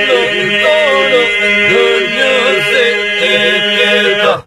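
Lab iso-polyphonic folk singing by a group of men: a steady drone held by several voices under melodic lines that bend above it. The singing breaks off abruptly near the end.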